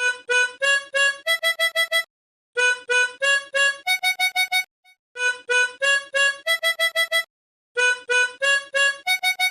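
Music: a phonk track's melody of short, repeated pitched notes, played in phrases of about two seconds with brief gaps between them, with no drums or bass underneath.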